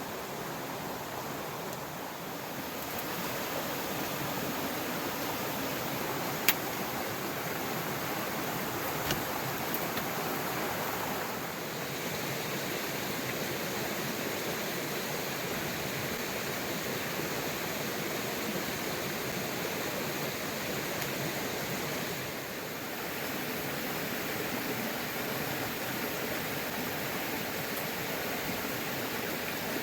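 Steady rush of running water from a river, with a sharp knock about six seconds in and a fainter one a few seconds later.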